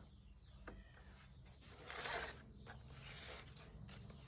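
Faint rubbing and handling noises with a light click under a second in and a louder rub about two seconds in, over a low steady hum.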